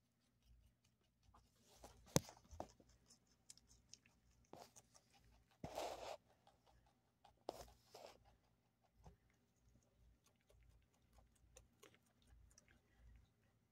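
Domestic rabbit chewing a dandelion flower and stem: faint, quick crunching clicks, with a few louder brief rustles about two, six and eight seconds in.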